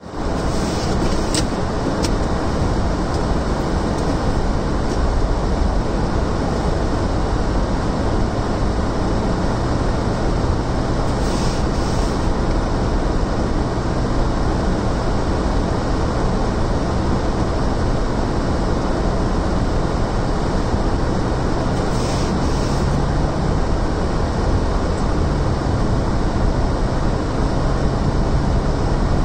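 Steady car cabin noise while driving on a snow-covered road: a constant rumble of tyres and road with a low engine hum that shifts in pitch a couple of times in the last third, plus two short hisses about ten seconds apart.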